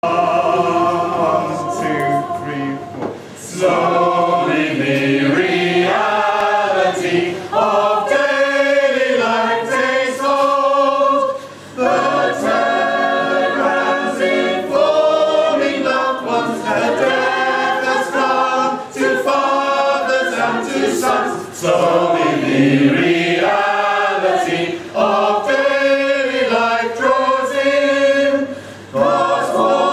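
Mixed choir of men's and women's voices singing together without instruments, in phrases broken by a few brief pauses.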